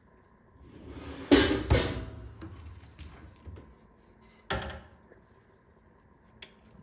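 Kitchen cabinet drawers and doors being worked: a sliding rush that ends in two sharp knocks about a second and a half in, another knock a few seconds later, and a small click near the end.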